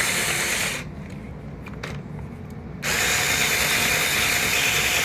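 Electric screwdriver turning the crank of a Sentro plastic circular knitting machine, the motor running with the machine's mechanism clattering. It stops about a second in, leaving a few light clicks, and starts up again about two seconds later.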